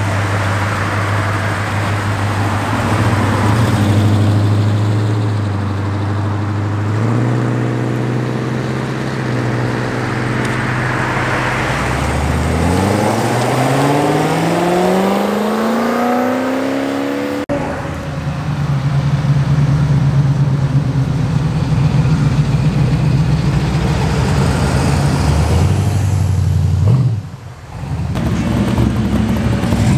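Car engines driving off one after another: an engine rumbling and pulling away, then a C7 Corvette's V8 accelerating hard with its pitch rising steadily for several seconds. After an abrupt change, another engine runs steadily loud, drops out briefly near the end, and a second-generation Camaro's engine takes over.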